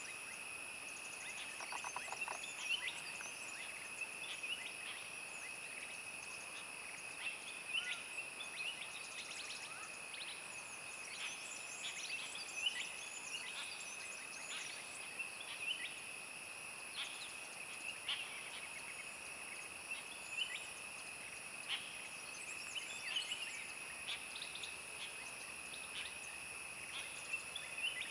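Forest ambience: a steady high-pitched insect drone runs throughout, with many short bird chirps and whistled calls scattered over it.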